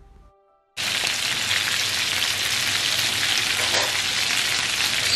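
Chicken pieces shallow-frying in coconut oil, sizzling steadily. The sizzle starts abruptly under a second in, after a brief near silence.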